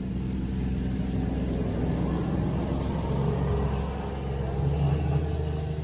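A motor vehicle's engine running nearby: a steady low rumble with an even hum, growing louder about two seconds in and easing off near the end.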